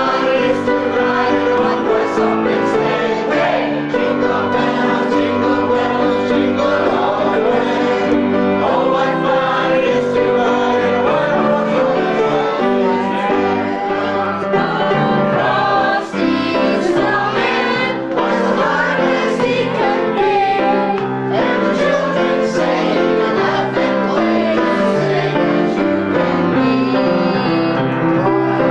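A mixed group of children and adults singing a Christmas carol together in unison, accompanied on Steinway pianos.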